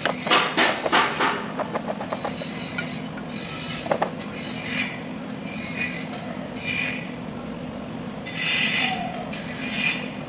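Hammer striking a wooden block held in the bore of a tractor front-axle housing, driving a part into its seat: a quick run of taps in the first second and a half, then one more knock about four seconds in. Scraping and handling of metal parts follow, over a steady low hum.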